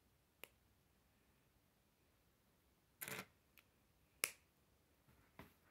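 K'nex plastic pieces clicking as a connector is pushed onto a flexible rod: a few scattered sharp clicks over near silence, with a brief rattle of handling about three seconds in and the loudest snap just after four seconds.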